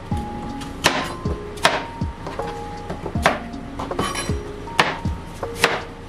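Chef's knife cutting an apple and then an onion on a plastic cutting board: a few sharp knocks of the blade hitting the board, with background music underneath.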